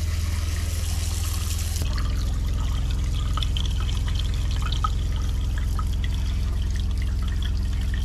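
Water running from a kitchen faucet into a stainless steel sink, flushing bleach sanitizing solution through the RV's fresh-water lines. Under it, the RV's fresh-water pump runs with a steady low hum, and its sound changes about two seconds in.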